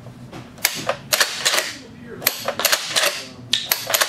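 Remington 870 pump-action shotgun in a Bullpup Unlimited polymer stock being racked several times with dummy rounds: quick sharp metallic clacks as the slide is worked back and forth in repeated strokes. The pump is worked hard, since this conversion needs an aggressive stroke to cycle.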